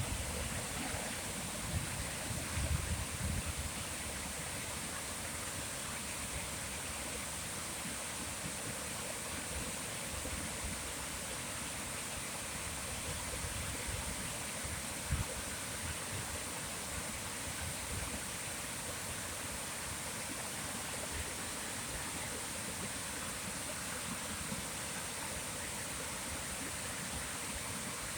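Steady rushing of a flowing stream, even and unbroken, with some low rumbling bumps about two to four seconds in.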